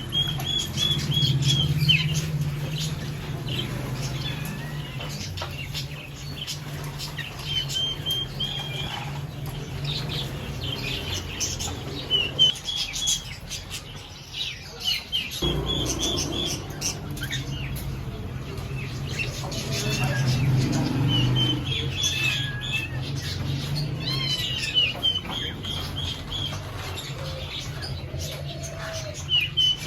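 Cockatiels chirping, giving many short repeated calls, over a steady low hum that drops out for a couple of seconds midway.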